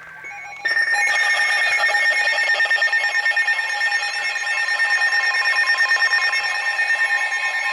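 Emergency alert alarm tone, a loud, steady electronic tone pulsing rapidly, starting a little under a second in and marking the start of a new weather alert.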